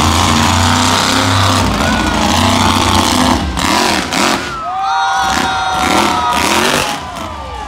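Monster truck engine revving hard as the truck drives across the dirt arena and climbs a jump ramp. Its pitch surges up and down several times in the second half.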